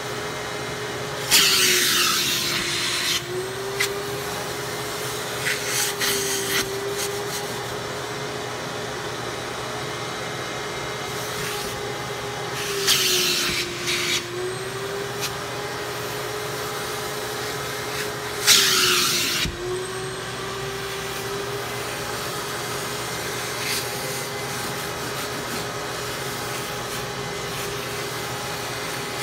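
Vacuum cleaner running steadily as its upholstery nozzle is worked over a cloth car seat. Three times, near the start, about halfway and about two-thirds in, the airflow hisses loudly for a second or two and the motor's hum dips in pitch.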